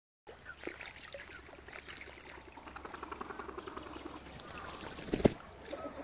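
Wetland night ambience: trickling water and scattered animal calls, with a stretch of rapid repeated calls in the middle. A single sharp thump about five seconds in is the loudest sound.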